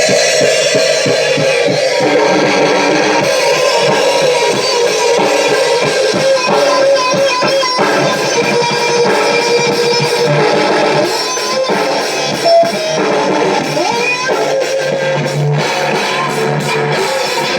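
Loud rock band jam: electric guitar playing over a drum kit.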